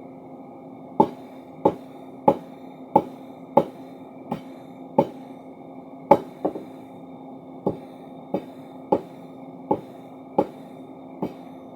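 Forging hammer striking hot steel over a steady machine hum, about one and a half blows a second starting about a second in, with a short break near the middle.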